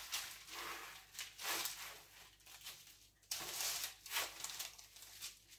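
Soft scraping and rustling from two cake lifters sliding under a sponge cake layer and lifting it, in a few short, faint strokes, the firmest a little past three seconds in.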